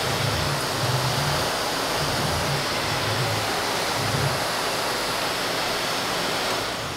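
Miele vacuum running with a Wessel-Werk RD285 hard-floor nozzle on its wand: a loud, steady rush of suction air, with a low rumble that comes and goes as the nozzle is worked. The level drops at the very end.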